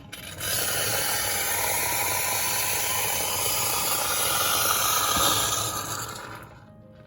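Instant boiling-water tap running near-boiling water into a cup: a steady rush of water and steam that starts just after the beginning and fades out about six and a half seconds in.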